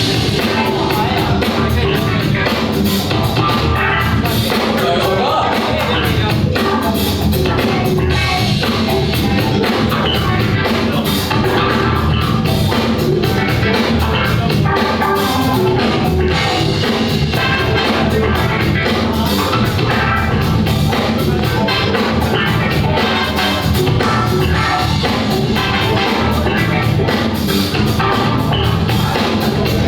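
Loud recorded music with a steady drum beat and singing, played by the DJ over the sound system for a dance battle.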